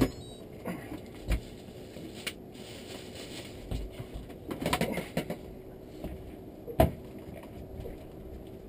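Irregular knocks and clunks of gear being handled aboard a fibreglass fishing boat, the sharpest one near the end, over a faint steady hum.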